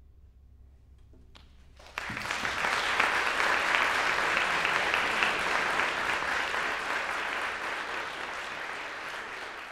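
Audience applauding, breaking out suddenly about two seconds in after a hushed pause, then slowly dying down.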